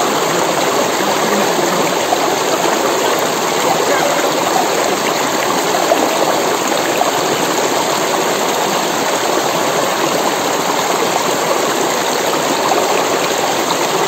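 Steady rush of a shallow hill stream flowing over stones, close to the water.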